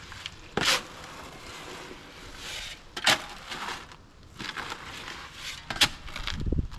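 Hand tool scraping through wet bagged concrete mix in three long strokes, a few seconds apart, over a rough gritty scraping between them.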